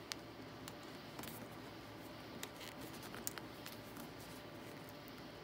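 Quiet room tone with a few faint, scattered small clicks and rustles as an awl is worked through a padded vinyl door panel.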